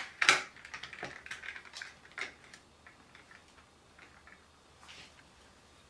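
A phone being slid and pressed into a clear plastic screen-protector alignment tray: a quick run of small plastic clicks and scrapes, the loudest just after the start, thinning out to a few faint taps after about two and a half seconds.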